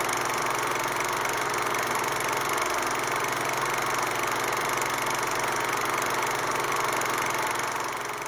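Mountain stream rushing in a steady roar of water, fading out near the end.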